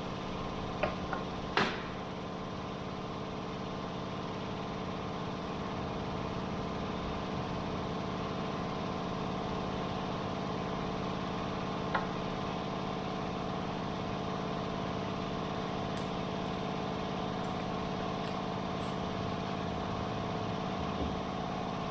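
Steady hum of running machinery with many layered tones, broken by a few light clicks and taps, twice in the first two seconds and once about twelve seconds in.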